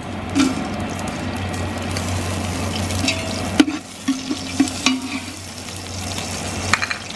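Whole spices (cinnamon sticks, peppercorns and seeds) sizzling in hot vegetable oil in a large metal pot. A metal spatula stirs them, scraping the pot and knocking against it sharply about three and a half seconds in.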